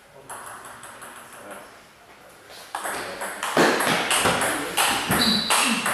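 Table tennis rally: the ball ticks faintly at first, then from about halfway is struck back and forth in quick, loud, sharp clicks of ball on bat and table, a few a second. A short high squeak comes near the end.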